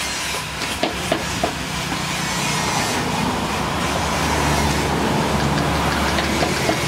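Handheld power tools working small wooden belt pieces: a steady rough grinding noise with a low hum under it, swelling slightly past the middle, with a few light clicks in the first second and a half.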